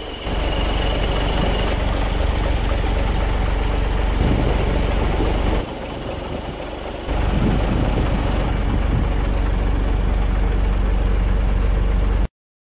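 Diesel donkey engine of a jet vac tanker running steadily. The sound drops for about a second and a half near the middle, comes back, and cuts off abruptly near the end.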